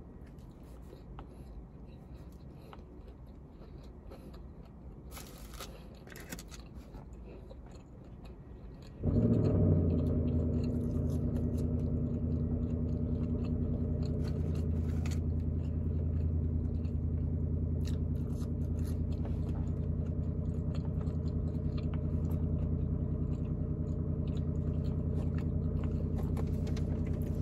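Faint chewing and a brief wrapper rustle. About nine seconds in, the car's engine starts and settles into a steady idling hum, which is the loudest sound from then on.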